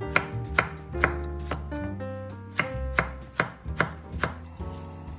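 Chef's knife slicing a red chili pepper on a wooden cutting board: sharp knocks of the blade on the board, about two a second, stopping about four seconds in.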